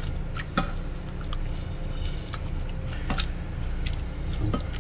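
Hand masher mashing soft cooked zucchini with butter and cream in a pot: wet squishing with scattered sharp clicks and knocks.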